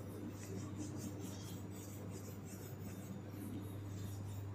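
A whiteboard being wiped clean with an eraser: faint, quick rubbing strokes, heard over a steady low hum.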